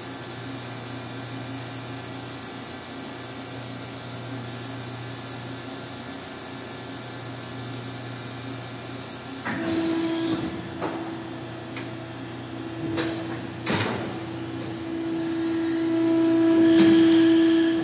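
Sumitomo SH450A injection moulding machine running. A steady hum goes on for about nine seconds, then a new steady tone starts with a few sharp clunks and knocks as the machine moves through its cycle. It grows louder near the end and drops off just at the close.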